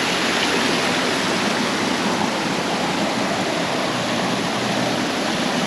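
Fast-flowing stream rushing over rocks below a waterfall: a steady, unbroken rush of water.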